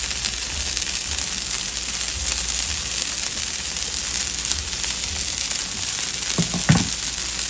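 Consomme-dipped tortillas and cheese frying on a hot griddle, a steady sizzle.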